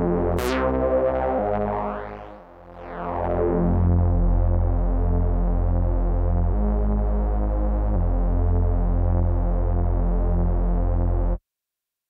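u-he Zebra 2 software synthesizer playing a bass preset: repeating low pitched notes, with sweeping tones that fall and rise and a dip in loudness about two to three seconds in. The sound cuts off suddenly near the end.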